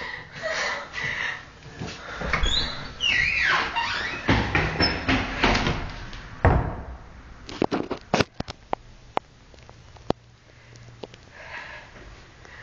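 A door being handled, with scuffs and knocks. There is a brief squeal about three seconds in, then a scatter of sharp clicks in the second half.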